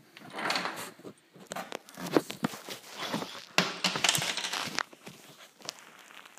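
Handling noises: irregular rustling with scattered light clicks and knocks, quieting over the last second or so.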